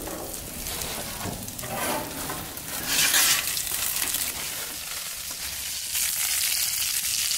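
Crappie and catfish fillets sizzling in their juices in aluminium foil boats fresh off a hot gas grill. The sizzle is louder near the end.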